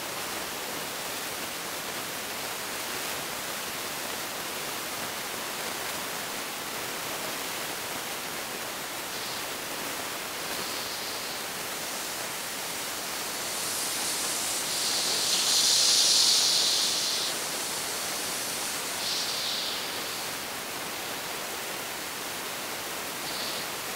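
Narrow-gauge (760 mm) steam tank locomotive hissing steam as it moves slowly, a steady hiss with several louder bursts of escaping steam; the loudest burst lasts about four seconds, a little past the middle.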